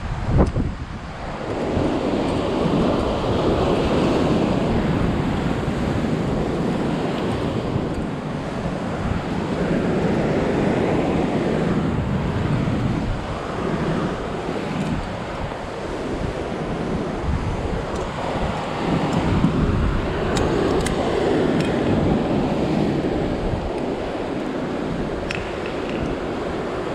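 Ocean surf breaking on rocks, swelling and fading every several seconds, with wind buffeting the microphone.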